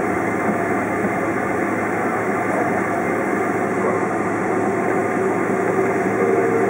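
Steady cabin noise of a Boeing 767-400ER taxiing, its jet engines running at low thrust as heard from inside the cabin.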